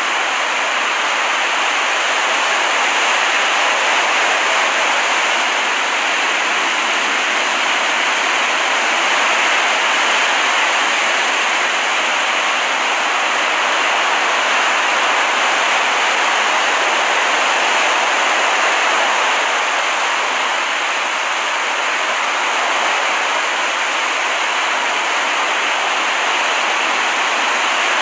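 Recorded ambience of ocean surf on a beach: a steady hiss of breaking water that swells and eases slowly.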